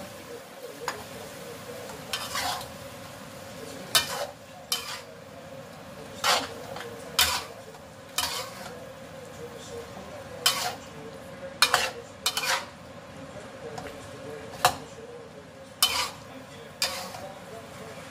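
A spatula scraping and knocking against a metal wok as chicken and vegetables are stir-fried, with irregular clanks about once or twice a second over a steady low sizzle from the pan.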